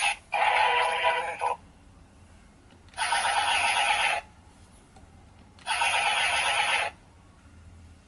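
Kamen Rider Ryuki CSM transformation toy (V-Buckle belt and Drag Visor) playing an electronic sound effect from its small speaker: three identical bursts, each about a second long, a couple of seconds apart.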